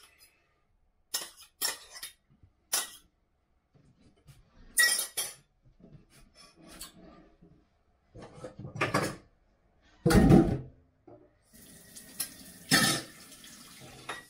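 Pots, pans and cutlery clattering at a kitchen sink in a string of separate knocks and clanks. The loudest is a heavy clunk about ten seconds in. Tap water starts running near the end.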